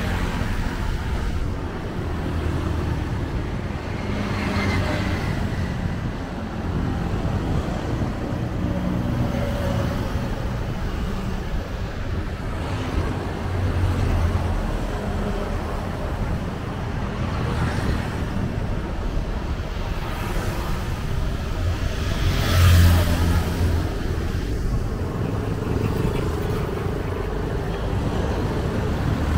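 Street traffic: vehicle engines and tyres running by in a steady low rumble. One vehicle passes close, loudest about three-quarters of the way through.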